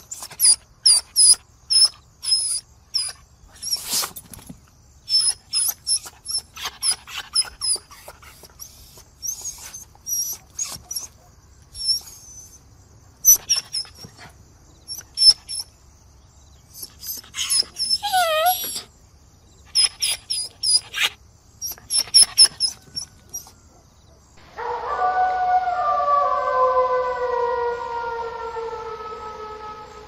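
Dog whimpering and yipping in many short, high-pitched squeals, with one longer whine that falls sharply in pitch about two-thirds through. Near the end a long wail with several pitches together starts and slides slowly down.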